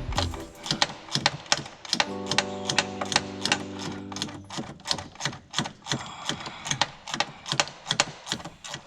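Background music with sustained tones, under a rapid, fairly even ticking about three to four times a second.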